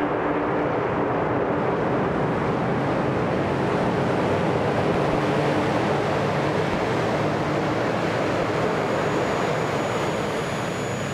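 Avro Vulcan's Olympus turbojet engines running at full power on a ground run: a loud, steady jet rush with the Vulcan's howl, and a high whine coming in near the end.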